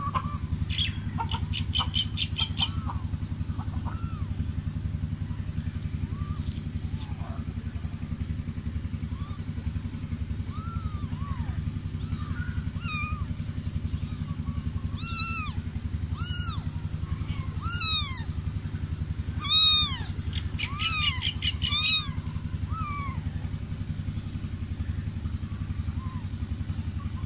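Newborn kittens mewing in short, high, arching cries, scattered at first and then coming in quick succession through the middle, the loudest about twenty seconds in. Under them is a continuous low rumble.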